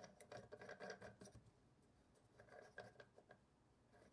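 Quiet clicking and rubbing of plastic parts on a stereo microscope's plastic head as a part is twisted by hand to test how tight it is. The sound comes in two short runs of small ticks, about a second each.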